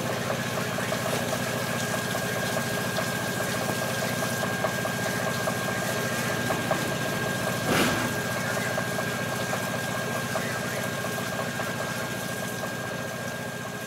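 A steady mechanical hum, like an engine or machine idling, with a constant high tone running through it. About eight seconds in there is one short burst of noise, and the hum fades slightly near the end.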